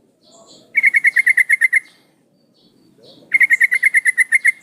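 Yellow-vented bulbul (trucukan) giving two bursts of rapid chattering notes, about ten a second, each burst about a second long. The call is presented as a female calling to a male.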